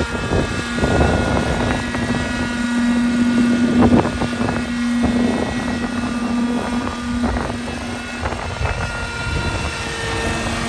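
Schluter Scout model helicopter's OS .61 two-stroke glow engine running steadily with its rotor in flight. Gusts of wind buffet the microphone near the start and about four seconds in.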